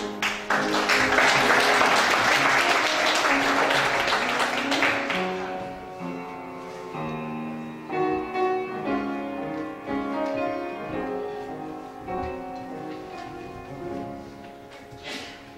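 A congregation applauds for about five seconds over piano music. The piano then plays on alone, gradually fading.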